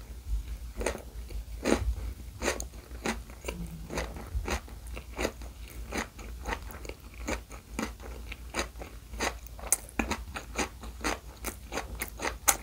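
Close-miked chewing of a full mouthful of rice-free keto gimbap, crunching in a steady rhythm of about two to three crunches a second.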